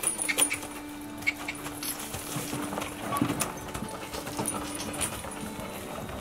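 Team of draft horses hitched to a forecart stepping and turning: hoof steps and clinks of harness and chains. A steady low hum runs underneath and stops about five seconds in.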